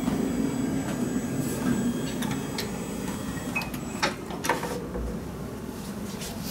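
Electric hospital bed motor humming as the head of the bed lowers, fading out about two to three seconds in. A few clicks and knocks follow.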